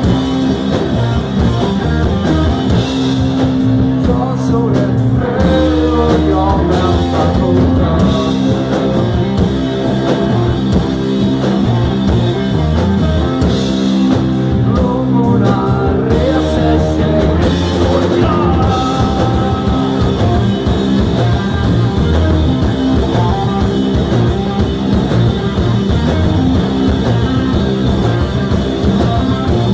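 Rock band playing live and loud: electric guitars and drums, with vocals.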